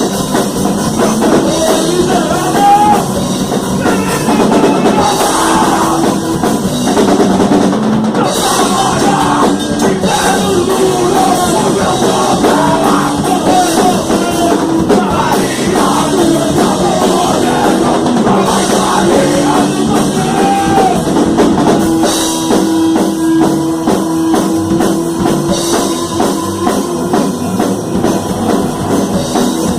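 Rock band playing a song live at full volume: a drum kit drives a steady beat under loud guitars and bass, with occasional singing.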